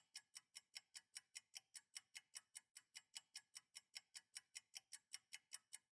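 Faint, fast, even ticking, about five ticks a second, that cuts off suddenly near the end.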